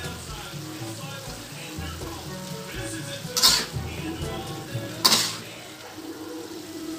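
Metal spatula stirring string beans and pork in an aluminium wok, scraping and clanking against the pan, with food sizzling underneath. There are two sharp clanks, about three and a half and five seconds in.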